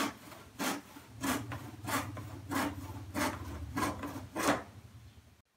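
Handsaw cutting through a plywood strip, with regular back-and-forth strokes about one and a half a second that stop shortly before the end.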